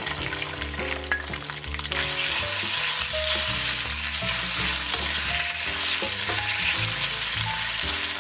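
Shredded chicken breast stir-frying in hot oil in a nonstick frying pan, sizzling as a wooden spatula stirs it, with a few light knocks of the spatula in the first two seconds. The sizzle grows louder about two seconds in and holds steady as the meat spreads over the oil.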